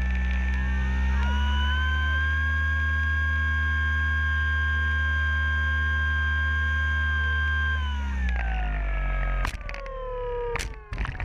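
RC Super Cub floatplane's motor and propeller, heard close up from an onboard camera, running at a steady high pitch while it taxis on the water. About eight seconds in it throttles down with a falling pitch, and a few sharp knocks follow near the end as it comes in to the shore.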